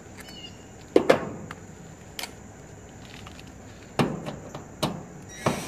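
Several sharp knocks and clatters, the loudest about a second in, as a cordless drill is handled against the sheet-metal cabinet of a heat pump's outdoor unit.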